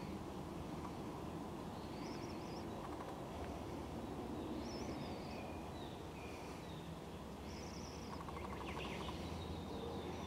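Bird calls over a steady low outdoor noise: a short high chirp repeated about every two to three seconds, with fainter, lower calls between.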